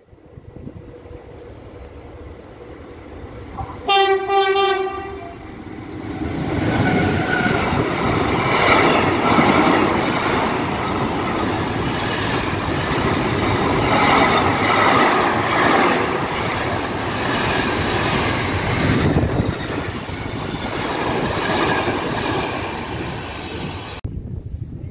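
Bombardier TRAXX electric locomotive E483 317 approaches, gives one horn blast of about a second and a half about four seconds in, then hauls a container freight train past: the loud steady rush and rumble of the loaded flat wagons, with wheels clattering over the rail joints. The sound cuts off suddenly near the end.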